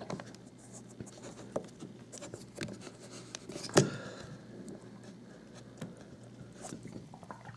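Faint rustling and scraping with scattered small clicks and one sharper knock a little under four seconds in, over a low steady hum.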